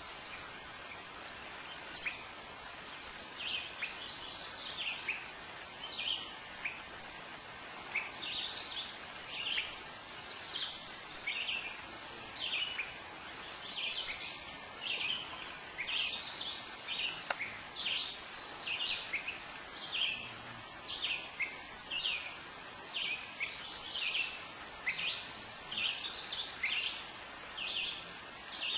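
Songbirds chirping from the shoreline woods: short, high chirps in quick clusters, about one or two clusters a second, running on without a break over a faint background hiss.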